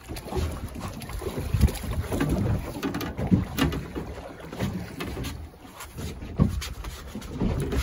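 Water slapping and lapping against the hull of a small boat, with uneven gusts of wind on the microphone and a few light knocks.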